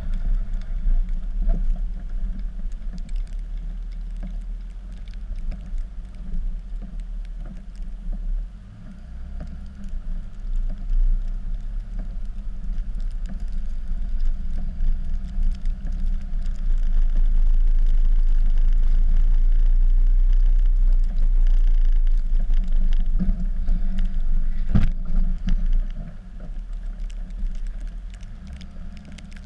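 Dodge pickup's Cummins inline-six turbo-diesel engine running while the truck plows snow, its drone shifting up and down as engine speed changes. A single sharp click about 25 seconds in.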